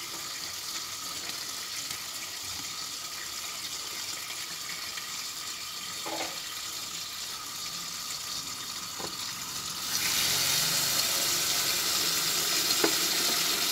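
Tap water pouring in a steady stream into a tub of soapy water, the flow getting clearly louder about ten seconds in.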